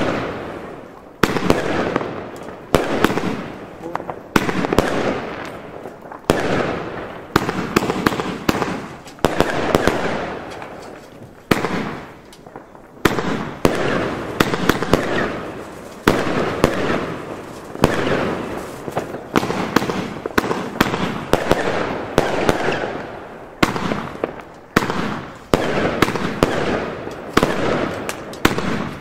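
Röder Alpha Centauri compound fireworks cake firing shot after shot, about one aerial break a second. Each break is a sharp bang that trails off over a second or so, with a brief pause about halfway through.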